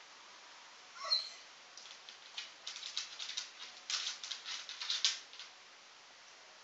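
Basset hound giving one short rising whine about a second in. Then his claws scrabble and click rapidly against the subwoofer and hardwood floor for about three seconds as he paws and shuffles, trying to reach a treat he is too short to get.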